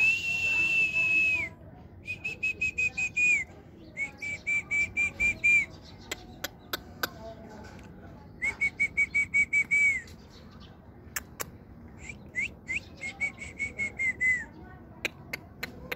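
Someone whistling: one long steady note, then four short phrases of quickly pulsing whistle, each ending in a falling note. A few sharp clicks sound between the phrases.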